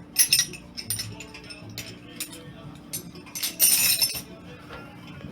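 Metal clinking and clattering in a run of sharp clicks, as of tools and metal parts being handled, with the loudest clatter about three and a half seconds in.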